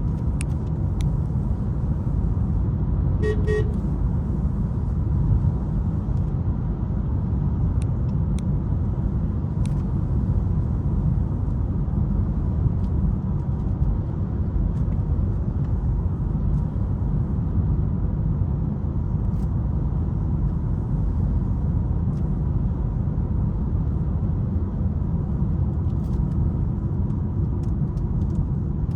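Steady low road and engine rumble heard inside the cabin of a moving Mitsubishi Outlander, with one short car-horn toot about three seconds in.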